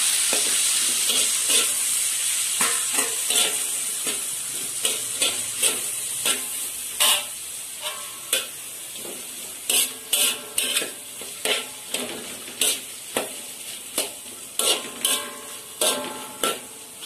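Cut cabbage sizzling in oil in a steel wok, loudest at first and dying down steadily. A metal spatula stirs and scrapes it, striking the wok with short metallic clanks every half second or so, more often in the second half.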